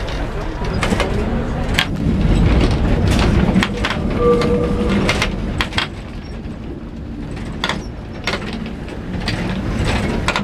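Lisbon route 28 tram running along its rails, heard from the driver's platform: a steady low rumble with irregular sharp clicks and knocks, and a short high tone about four seconds in.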